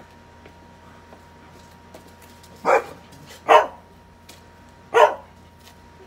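A dog barking three times, single sharp barks about a second apart: alarm barks at a zombie animatronic figure that frightens it.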